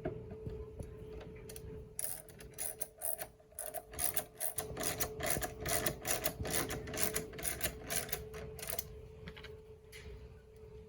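Hand ratchet clicking in quick, uneven runs as the headlight's mounting bolts are run in, stopping about two seconds before the end.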